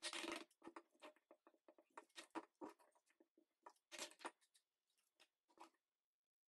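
Fixed-blade knife splitting and shaving a chunk of fatwood: a faint run of short wood cracks and knife scrapes. The louder ones come at the start, about two seconds in and about four seconds in.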